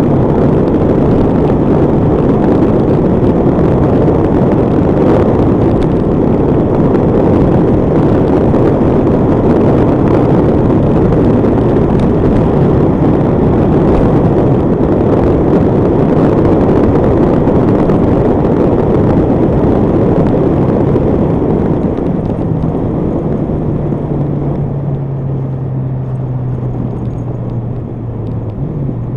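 Honda CBR1100XX Blackbird motorcycle running at road speed, with wind rush on the microphone largely covering its inline-four engine. About three-quarters of the way in, the wind noise drops and a steady engine note comes through, falling in pitch as the bike slows.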